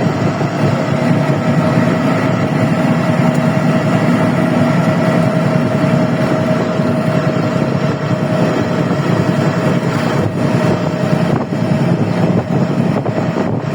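Steady running noise of a moving vehicle, with a constant low rumble and a steady hum-like tone, unchanged throughout.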